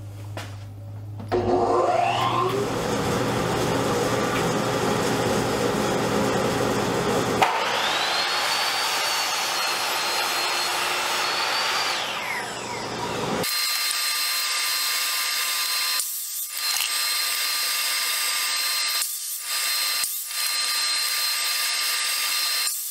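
Ryobi 10-inch sliding compound miter saw spinning up and crosscutting cedar 4x4s. The blade whine rises as the motor comes up to speed and falls as it winds down, and a steady high whine follows with several brief breaks.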